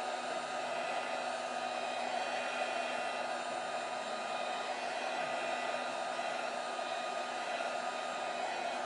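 Heat gun running steadily, blowing hot air to soften the adhesive under a phone's front glass.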